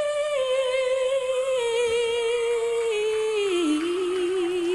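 Female vocalist holding one long sung note, stepping down in pitch twice and settling into a wide, even vibrato near the end.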